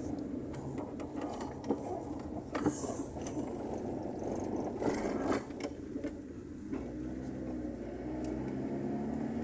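Car engine and tyre noise heard from inside the moving car's cabin, a steady low hum. A few sharp clicks and rattles break in about two, three and five seconds in.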